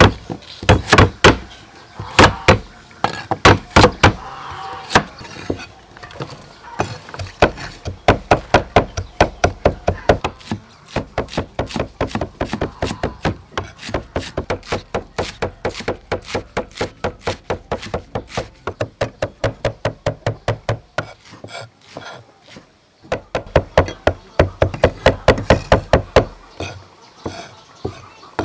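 Cleaver chopping vegetables on a thick round wooden chopping block. A few heavy separate strokes at first, then quick, even runs of about five chops a second, broken by a short pause.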